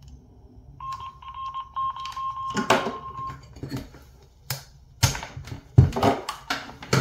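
A steady high electronic beep starts about a second in and holds for about two and a half seconds. Over and after it come a series of sharp clicks and knocks as a K1 speaker-mic plug is pulled from the USB communications interface and the gear is handled.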